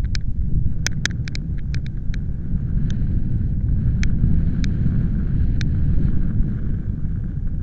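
Wind gusting over the microphone, a heavy steady rumble, with a scattering of short, sharp high ticks, most of them bunched in the first two seconds.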